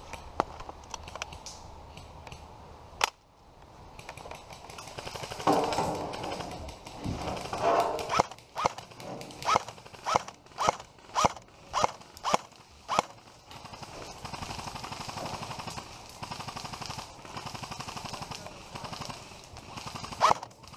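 Airsoft rifle firing single shots, about nine in a row at roughly two a second, each a sharp crack.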